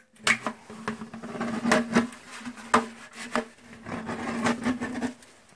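Vice grips clamping and bending the cut edge of a sheet-metal stovepipe: irregular sharp metallic clicks and scrapes.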